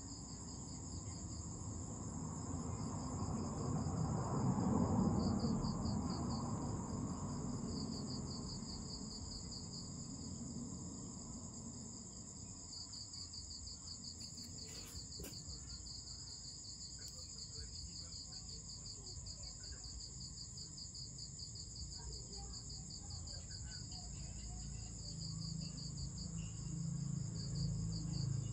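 Night insects calling: one keeps up a steady high-pitched drone while another gives a fast pulsing trill in runs that stop and start. A low rumble swells about four to six seconds in and again near the end.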